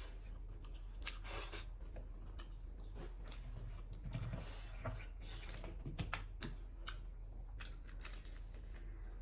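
Close-up eating sounds: chewing with many small irregular clicks and crackles.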